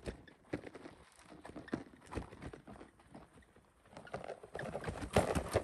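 Fully loaded Landescape tandem bicycle rolling down a stony grass track towards and past the listener, with irregular knocks and clatters from tyres on stones and the rattling bike and panniers. The clatter grows louder from about four seconds in as the bike comes close.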